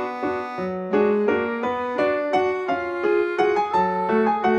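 Background piano music: a light tune of separate notes played at a steady pace.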